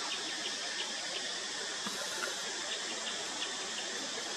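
Steady outdoor background hiss, with faint short high chirps scattered through it.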